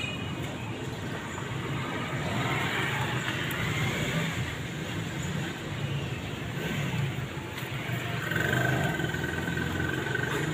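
Steady low rumble of road traffic, with a thin, steady whine joining in for the last couple of seconds.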